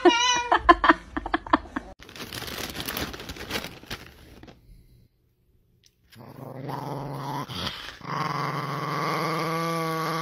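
A dog growling and grumbling, broken by a pause of near silence about halfway through.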